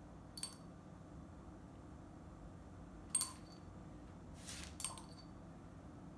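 A paintbrush clinking against a small glass jar of acrylic paint: three light, ringing clinks, about half a second in, at about three seconds (the loudest) and near five seconds, with a short brushing scrape just before the last.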